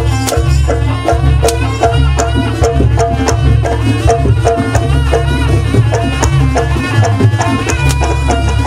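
Traditional Javanese jaranan dance music: an ensemble melody moving in quick steps over steady percussion and a deep low drone, with a rattling shake on top.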